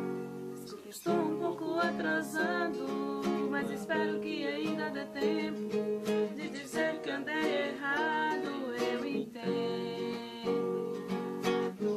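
Acoustic guitar strummed while a man and a woman sing together in Portuguese, a song with a brief pause in the strumming about a second in.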